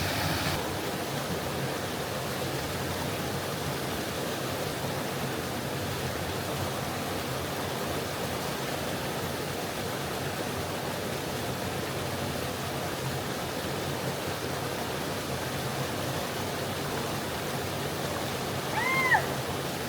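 Creek water flowing, a steady rushing that holds even throughout. Just before the end comes one short call that rises and falls in pitch.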